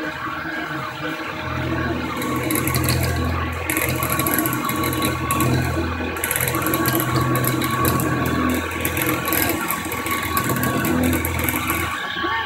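CNC mini mill's spindle running with an end mill cutting into a metal plate: a steady whine over a low hum, with a hissing cutting noise that comes in about two seconds in for a second or so, then again from about six seconds until near the end.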